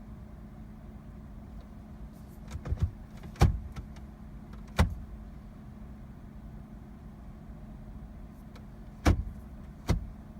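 Sharp clicks and knocks from a Jeep's cabin controls being worked, over a steady low hum. A quick pair comes about two and a half seconds in, the loudest knock follows a second later, another comes near five seconds, and two more come near the end.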